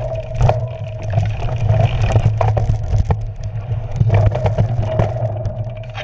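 Cyclocross bike ridden over a rough dirt and leaf-covered trail, heard from a handlebar-mounted camera: a steady low rumble of wind and tyres, with frequent sharp knocks and rattles as the bike goes over bumps.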